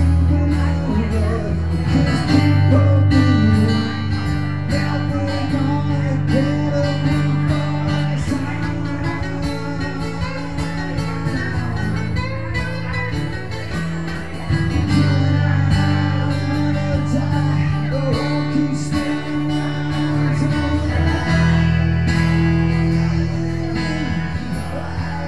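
Live acoustic guitar music: strummed chords over sustained low notes that change every few seconds, with a voice singing at times.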